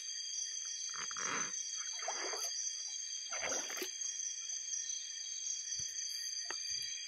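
A cast net being hauled through shallow, muddy river water, with three swishing splashes in the first four seconds. Behind it runs a steady night chorus of calling insects, several constant high tones.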